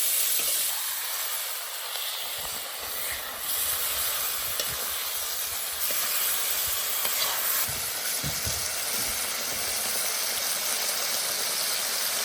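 Green and red peppers, ginger and garlic sizzling in hot oil left from frying tofu, stirred now and then in the pan; a steady hiss with a few soft knocks.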